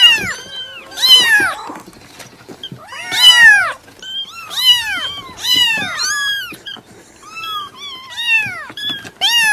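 Cat meowing over and over: a string of short meows, each rising then falling in pitch, about one a second.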